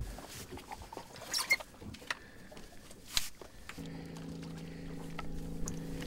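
Scuba gear handled during suiting up: scattered light clicks, knocks and rustling. A steady low hum sets in about four seconds in.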